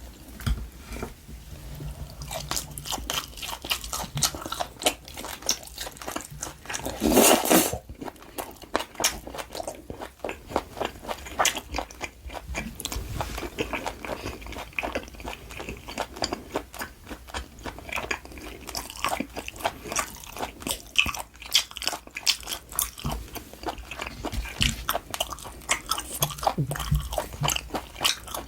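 Close-miked mouth sounds of chewing and biting LA galbi (grilled beef short ribs), a steady run of wet clicks and crunches, with one louder burst about seven seconds in.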